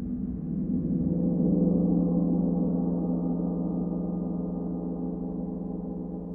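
Deep, sustained ringing tone rich in overtones, swelling over the first two seconds and then slowly fading, the drone that opens a Japanese percussion piece.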